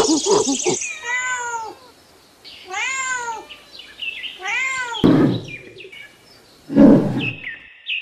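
A domestic cat meowing three times, each call rising then falling in pitch. After the meows come two short rough noisy bursts, the second the loudest sound, and then a few quick falling chirps near the end.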